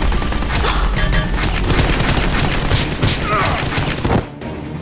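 A rapid volley of gunfire sound effects, many shots in quick succession over background music, breaking off about four seconds in.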